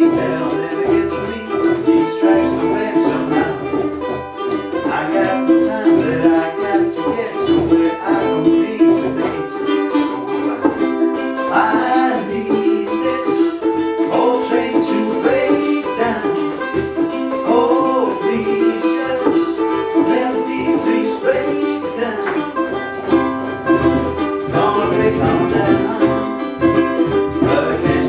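A small acoustic band playing: strummed ukuleles with a beat played on a cajón (box drum).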